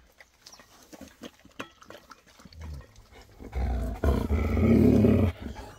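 A grey husky-type dog being petted gives a low, rough growling grumble for about two seconds near the end, after a stretch of faint clicks and taps.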